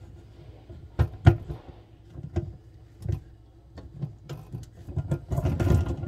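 Plastic clicks and knocks from a dishwasher's lower spray arm being handled and fitted back onto its mount in the tub: a few sharp knocks early, then a quicker run of clatter near the end.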